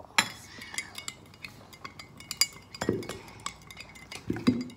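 A metal spoon stirring kefir in a glass mug, clinking irregularly against the glass, with a duller knock about three seconds in and another near the end.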